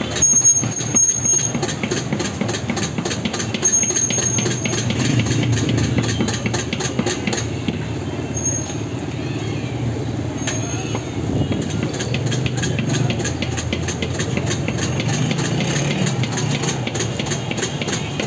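Egg-dipped shami kababs sizzling and crackling in oil on a large flat griddle, over a steady low rumble of street traffic and voices. A few short high squeals come through, about half a second in, at about four seconds and twice more in the middle.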